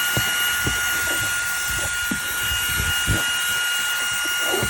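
Eufy H30 handheld cordless vacuum running with a steady high whine and rushing air, with irregular low knocks as the nozzle works over sandy car carpet.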